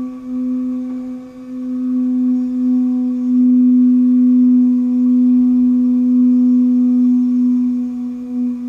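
A sustained ringing drone held on one low pitch with fainter overtones above it, growing louder after a second or so and easing near the end.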